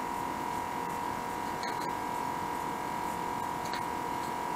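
A steady high-pitched hum, like an electrical whine, with a few faint small clicks.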